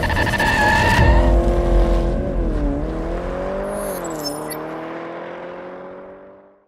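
Racing car engine at high revs, its pitch climbing, dropping twice and climbing again, then fading away to silence over the last couple of seconds. Music carries over into the first second.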